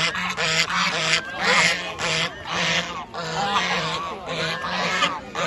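A flock of waterfowl calling, many short honking calls overlapping in a steady, continuous clamour.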